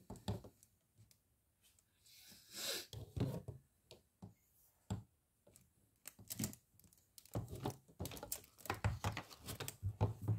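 White plastic frame tubes being handled and pushed into their plastic connectors: scattered clicks, knocks and short scrapes of plastic, with quiet gaps between them, coming more often in the last few seconds.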